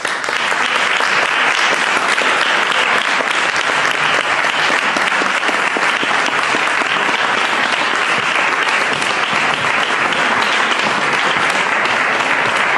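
An audience of seated people applauding steadily, sustained clapping in a large hall that starts suddenly and holds at an even level.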